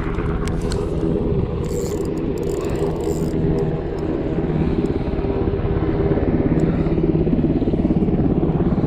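Helicopter engine and rotor running steadily overhead, a low pitched drone with a fast pulsing beat that grows louder in the second half. A few brief scratchy hisses come through a couple of seconds in.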